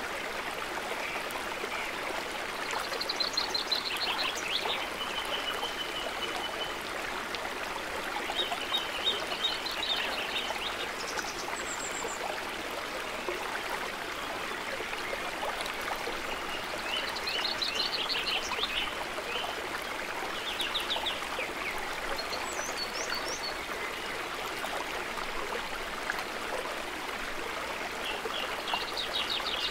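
Woodland stream flowing steadily over rocks, with small birds singing short trilled phrases every few seconds.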